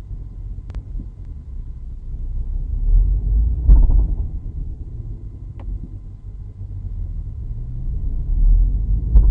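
Low rumble from a 2016 Chevrolet SS 6-speed manual's drivetrain, heard inside the car. A heavy thump comes a little under four seconds in and another near the end. This is the severe bouncing-thumping drivetrain noise whose cause the owner is trying to find.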